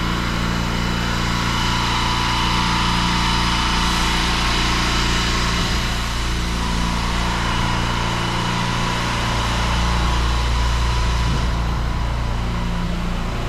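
Pressure washer's engine running steadily while a high-pressure water jet hisses onto block paving to wet it down. The hiss of the spray thins out near the end.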